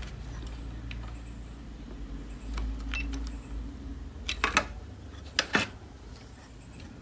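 Light clicks and taps of handling on an electronics repair bench, a few scattered and a small cluster about four and a half seconds in, over a low steady hum.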